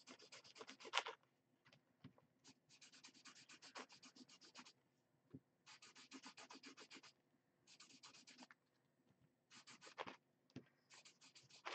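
Washable felt-tip marker drawn in quick short strokes across a paper coffee filter: a faint, rapid scratching of several strokes a second, in runs of one to two seconds with brief pauses between.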